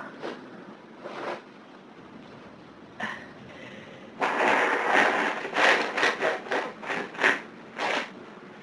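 A hayfever sufferer's nose and breath sounds: a noisy rush of air lasting about a second, starting about four seconds in, then a run of short sharp nasal bursts, about three a second.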